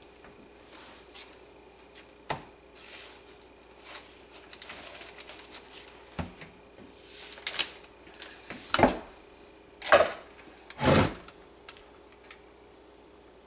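Kitchen utensils being handled, with scattered light clicks and clatter, then several louder scrapes of a silicone spatula against a crock-pot insert, the loudest near the end.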